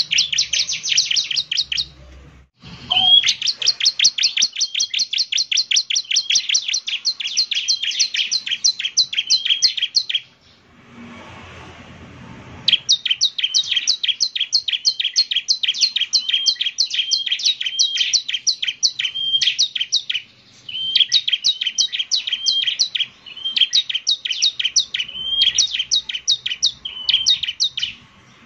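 Bar-winged prinia (ciblek) singing: long runs of rapid, sharp, high chirps repeated many times a second, broken by a few short pauses.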